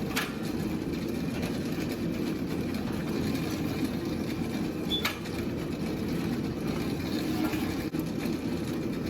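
A powered roller mill running steadily while it rolls hot leaf spring steel thinner, with two sharp knocks, one just after the start and one about five seconds in.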